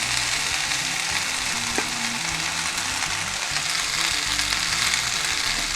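Potatoes frying in sunflower oil in a skillet, giving a steady sizzle, with a single light tap about two seconds in.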